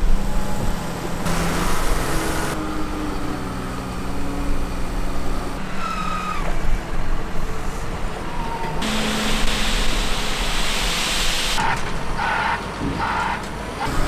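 Diesel engines of a Jungby L11 wheel loader and a tractor running while the loader works a heap of milled asphalt, as a steady engine hum with long stretches of rushing noise.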